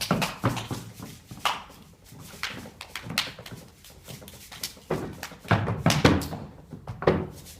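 Irregular thuds and knocks, several a second, with a louder, fuller stretch of them about five and a half seconds in.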